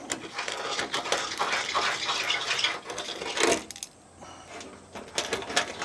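Hand deburring tool's blade scraping the edges of freshly drilled holes in the ute's metal guard: a rough rasping scrape for about three and a half seconds, then quieter, with a few light clicks near the end.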